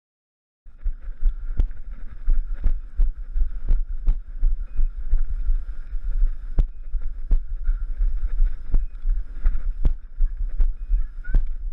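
Wind buffeting a body-worn action camera's microphone in a loud low rumble, starting abruptly under a second in, with thuds about once a second from the wearer's footsteps as he walks through tall grass.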